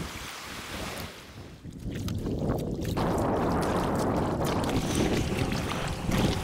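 Wind buffeting the microphone over choppy water and waves. About two seconds in, it gives way to water rushing and splashing around a kayak being paddled.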